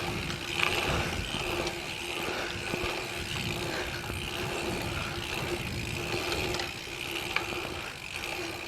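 Mountain bike rolling with its rear freehub ratcheting steadily as it coasts, over rumbling trail and wind noise.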